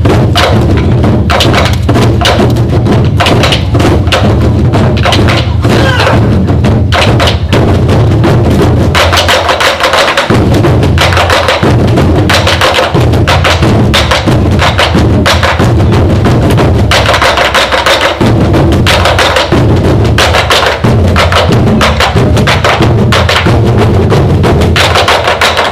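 An ensemble of Korean drums (buk) is beaten in a fast, dense rhythm, with the strokes following one another throughout.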